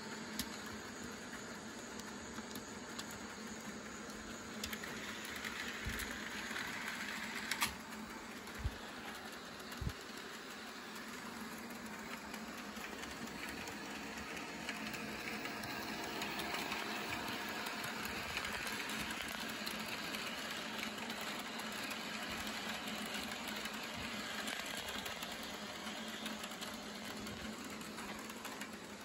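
HO scale model passenger train running on the layout: a steady whir of the small electric motor and rolling wheels, a little louder in the second half as it runs closer. A few sharp clicks come in the first ten seconds.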